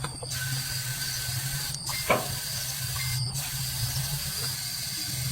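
A steady hiss of escaping air or spray that stops briefly twice, over a low steady hum, with a single sharp click about two seconds in.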